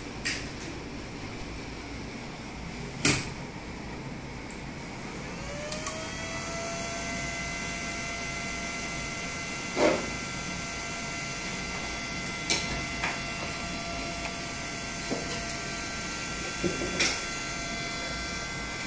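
Cooling fan of an ABB ACS variable-frequency drive spinning up at power-on, its whine rising over about a second and then running at a steady pitch. A few sharp knocks from the drive being handled come about 3, 10, 12 and 17 seconds in.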